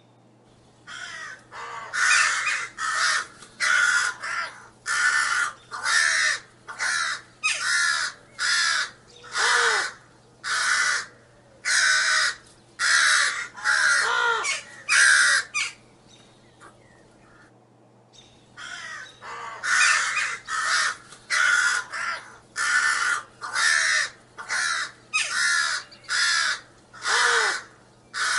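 A bird giving harsh, raspy calls in long runs of about two calls a second, with a pause of a couple of seconds midway.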